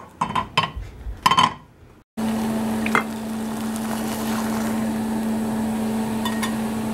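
Kitchen cooking sounds: a few sharp clinks of utensils and cookware, then a steady hum from a kitchen appliance with a constant low tone, lasting through the rest.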